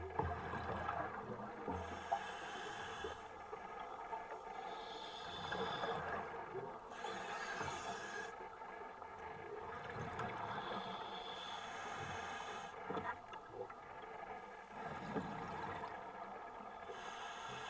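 Scuba diver breathing through a regulator underwater: a hiss on each inhale alternating with bubbling exhales, a breath cycle about every four to five seconds, over a steady underwater hum.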